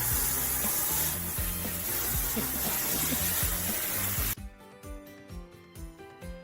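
A loud, even hiss over low music notes, cut off abruptly about four seconds in, leaving background music with a regular beat.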